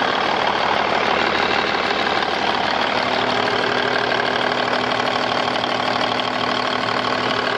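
Cummins N14 inline six-cylinder diesel engine of a 1995 WhiteGMC WG semi truck running steadily at idle.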